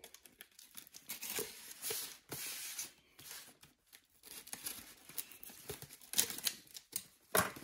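Box cutter slitting the packing tape along the seams of a cardboard shipping case, with short scraping and tearing strokes of blade on tape and cardboard.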